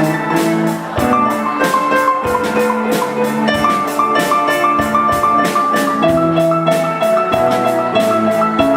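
Instrumental music: a bright pitched melody in stepping notes over a drum kit keeping a steady beat.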